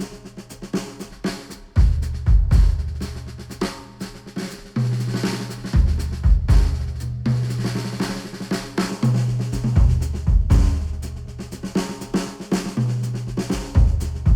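Music with a drum kit (kick and snare hits) over held deep bass notes, played back through headphones and picked up by microphones at the earcups.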